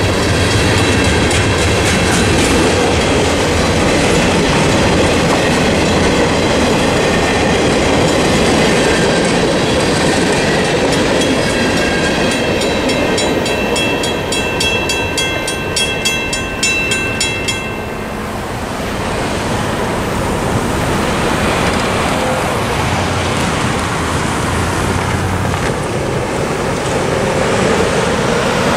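Tank cars of a CSX mixed freight train rolling over a level crossing, wheels clattering on the rail joints, while the crossing's Western Cullen Hayes mechanical bell rings with rapid even strokes. About two-thirds of the way through the bell stops suddenly once the train has cleared, and road vehicles begin driving over the crossing.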